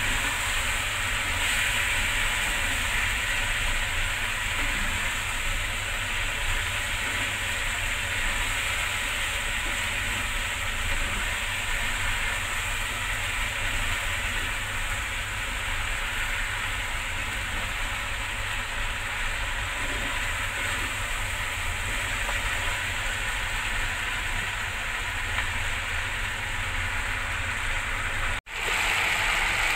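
Beef strips, bell peppers and onions stir-frying in oil in a stainless steel pot: a steady sizzling hiss over a low, even rumble. The sound cuts out for an instant near the end.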